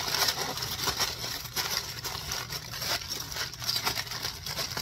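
Aluminium foil crinkling and crackling in a dense, irregular run of small crackles as it is folded and crimped tight to seal a foil packet.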